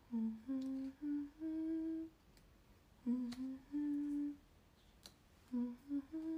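A young woman humming a tune in three short phrases, each a few notes stepping upward, with brief pauses between them.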